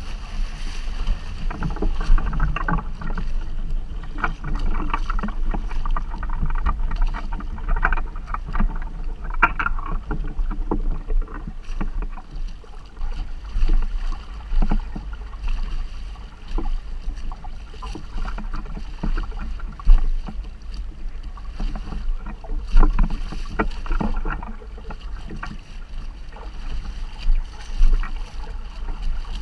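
Water splashing and slapping against the hull of an inflatable boat under sail, in irregular sharp splashes, over a steady low rumble of wind on the microphone.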